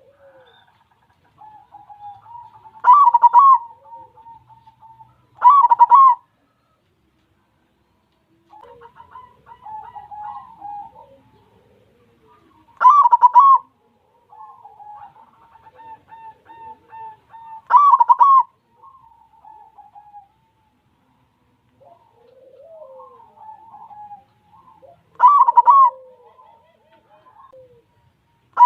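White zebra dove (perkutut) singing its cooing song. Five loud coo phrases come every few seconds, with softer trilled coos between them.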